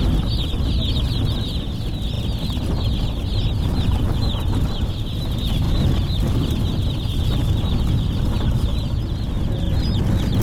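Low, steady rumble of a vehicle driving along a road. Over it runs a continuous stream of rapid, high chirps from an unseen source.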